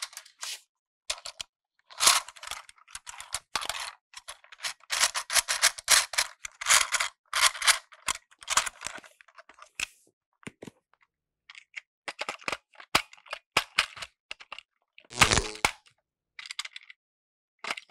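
Hard plastic toy train being handled: scattered clicks, taps and rattles as it is turned over and its battery cover is taken off, with one louder knock about 15 seconds in.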